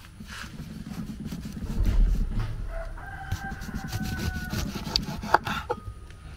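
A rooster crowing once in one long held call about three seconds in. Around it are rubbing and handling noises, with a low rumble near two seconds and a few sharp knocks near the end.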